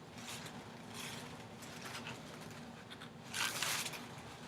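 Handling noises: faint scraping and rustling, with one short, louder sliding rustle about three and a half seconds in, like a plastic sleeve or bag being moved.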